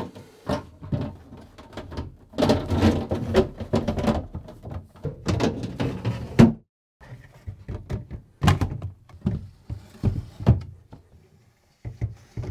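Plastic fridge drawers and shelves being slid and set back into a fridge freezer's compartment: a run of knocks and clunks, with two longer stretches of rattling clatter as drawers slide home on their runners.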